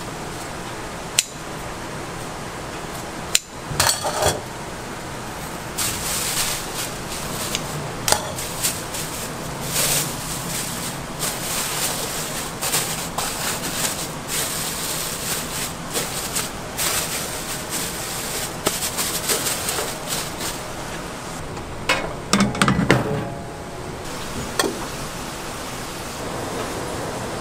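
Food-prep handling at steel trays: a few sharp clicks and knocks, then a long stretch of crinkly plastic wrap rustling as it is spread over a tray of sundae (Korean blood sausage), and a short clatter of metal near the end, over a steady hiss.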